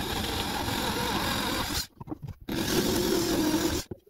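Corded electric drill boring pilot holes into a softwood batten: two runs, the first about two seconds and the second about a second and a half, with a short pause between.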